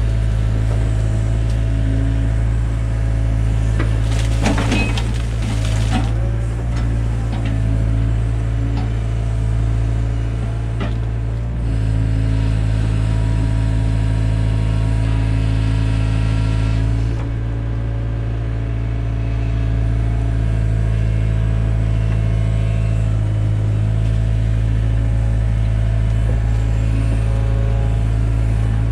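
Takeuchi TB175 excavator's diesel engine running at a steady speed, with a steady whine from the hydraulics that shifts in pitch as the arm and bucket work. A few clatters and scrapes come around five seconds in and again near eleven seconds.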